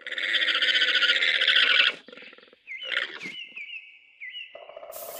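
Alpaca calling: one loud, shrill call of about two seconds, followed by a string of short, high, rising chirps. Another call begins near the end.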